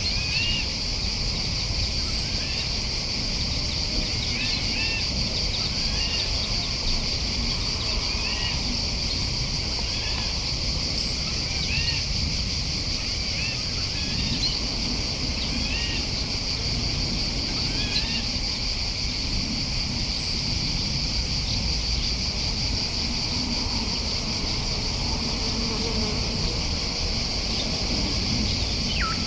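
A steady high insect drone, with a bird repeating short arched chirps every second or two and giving one falling call near the end.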